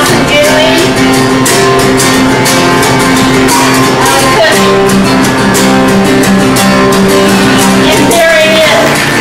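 A song played on strummed acoustic guitar with a voice singing held, gliding notes over it.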